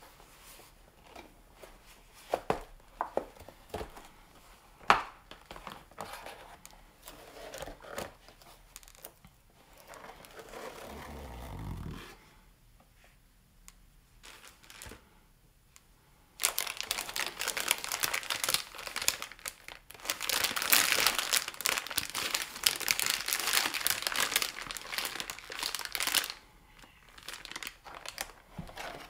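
Packaging being handled and unwrapped: scattered clicks and taps at first, then about ten seconds of dense crinkling and tearing from a little past the middle.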